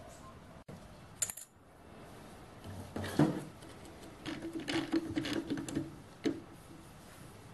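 Small steel parts clinking and rattling as mild steel washers and the lathe chuck are handled: a sharp click about a second in, a knock around three seconds, then a run of metallic clinks with a faint ringing tone for a couple of seconds.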